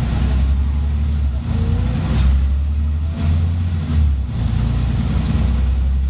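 Scania N94UB single-deck bus's five-cylinder diesel engine running under way, heard from inside the passenger saloon as a loud low drone, with brief dips about one and a half and four seconds in.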